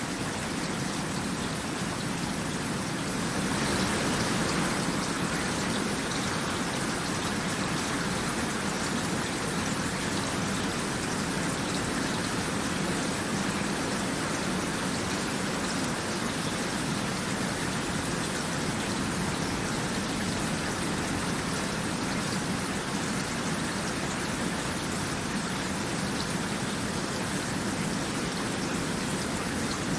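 Steady rain falling, an even patter of drops, swelling a little heavier for a couple of seconds about four seconds in.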